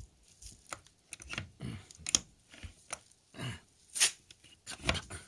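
Irregular clicks and knocks of things being handled, about a dozen scattered sharp taps, some with a dull thud, with no engine running.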